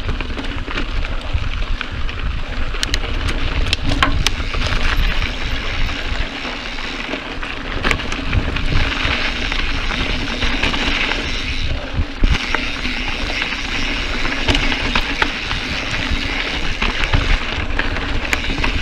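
Mountain bike on a dirt singletrack: tyres rolling and crunching over the trail, wind buffeting the microphone, and scattered sharp clicks and knocks from the bike over bumps.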